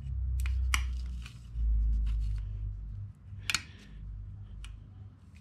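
Sharp metallic clicks and taps of a thin aluminum part being handled and pressed in a DRDT-2 dimpling tool's dimple dies, several in quick succession at first and one loud click about three and a half seconds in, over a low rumble through the first three seconds.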